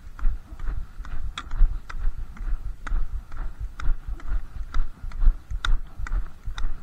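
Footsteps of a brisk walk on a snowy road, about two steps a second, with sharp clicks of Nordic walking pole tips striking packed snow and ice.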